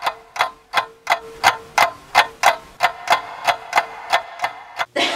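Clock-ticking sound effect: even ticks, about three a second, cut off near the end.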